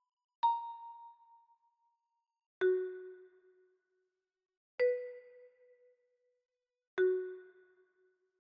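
Chime sound effect struck four times, about two seconds apart, each ringing out and fading; the first is higher in pitch, the other three lower.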